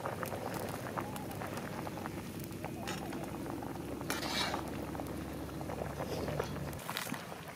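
Fish curry bubbling at a rolling boil in a large aluminium pot, with a perforated ladle stirring and clinking against the pot now and then. A brief hiss comes about four seconds in, and the low rumble of the boil drops away suddenly near the end.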